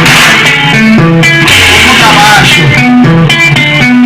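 Loud music with a plucked, guitar-like riff over a stepping bass line.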